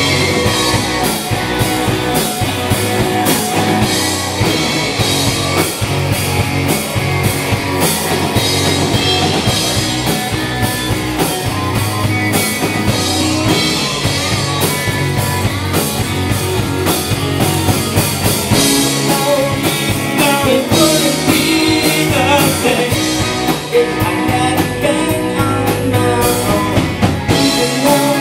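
Rock band playing live: a drum kit keeping a steady beat under guitar, loud and continuous.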